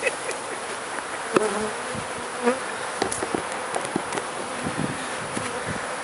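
Honey bee swarm buzzing as the bees settle around a hanging bucket that holds their queen, with single bees humming past now and then.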